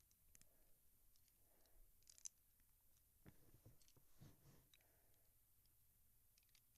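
Faint small clicks and soft handling rustles of plastic Lego pieces being handled, one click a little sharper about two seconds in; otherwise near silence.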